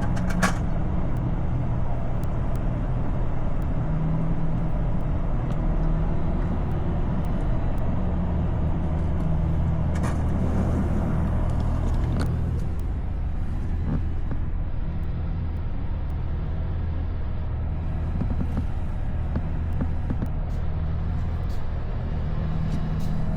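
Steady low drone of a road vehicle's engine running, with a brief hiss about ten seconds in.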